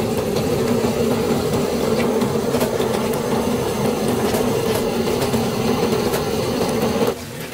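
A motor running steadily with an even hum, then cutting off suddenly near the end.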